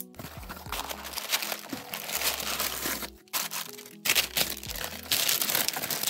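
A cardboard shipping box is opened by hand and crumpled brown kraft packing paper crinkles as it is pulled out of the box. The crinkling stops briefly around three seconds in, then is loudest in the second half. Background music with a low bass line plays throughout.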